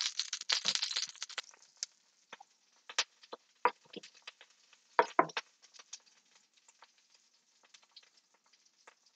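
A chef's knife knocking and scraping on a wooden cutting board as minced garlic is gathered into a pile: scattered separate sharp taps, the loudest a few seconds in.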